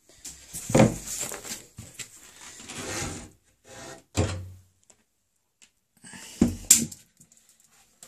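Top lid of a washing machine being slid back and lifted off, with a sharp knock about a second in, a scraping slide after it, and further knocks around the middle and near the end.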